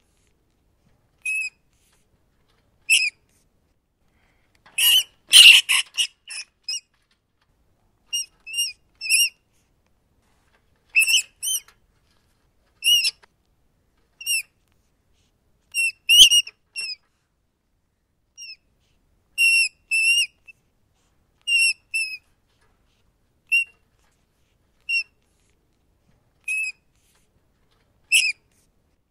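Rats squeaking: short, high-pitched squeaks, singly or in quick runs of two or three, every second or two. A few of them are louder and harsher squeals.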